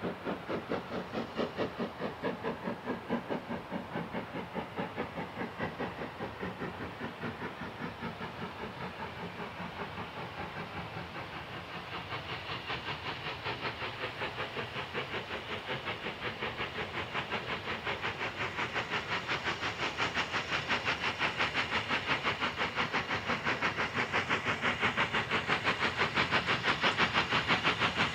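Steam locomotive working hard on the approach: a steady rapid rhythm of exhaust beats, with some hiss, that grows louder as the engine draws nearer.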